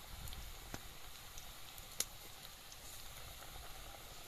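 Hot oil sizzling and crackling steadily in a steel kadai as radish pakoras deep-fry, with small scattered pops and one sharper pop about two seconds in.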